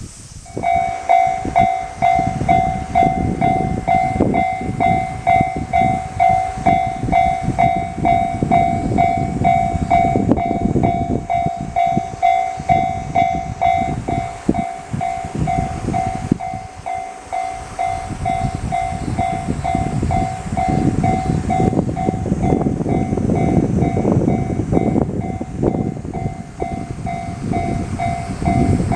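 Japanese railway level-crossing alarm starting about half a second in and ringing on with a rapid, even ding-ding pulse, over the loud, uneven rumble of a train running past on the line.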